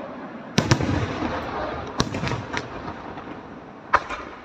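Aerial firework shells bursting: a quick pair of sharp bangs just after the start, another bang about two seconds in and a double bang near the end, with a rumbling echo between them.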